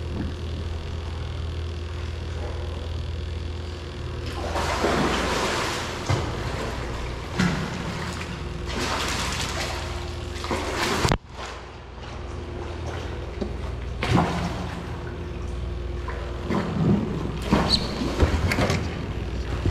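Water splashing and trickling in repeated bursts over a steady low rumble, with an abrupt break about eleven seconds in.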